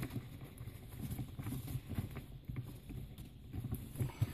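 Faint handling sounds from a Ford Focus ST's gear knob being twisted off its lever and the gear gaiter and trim surround being lifted: soft rustle with scattered light clicks, a few more near the end.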